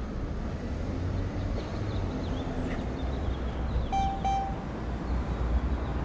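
Low, steady street rumble of traffic and wind on the microphone. About four seconds in come two short electronic beeps.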